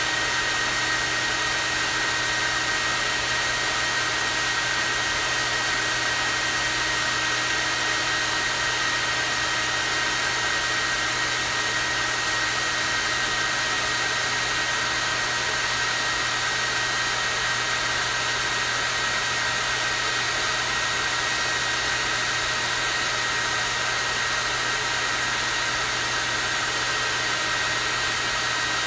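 Hair dryer running steadily on its strong-airflow (high) setting: an even rush of air with a constant high whine and a low motor hum.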